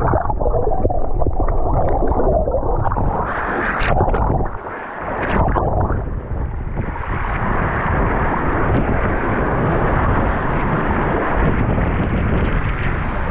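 Wind buffeting an action camera's microphone: a loud, steady rumbling rush that dips briefly about four and a half seconds in.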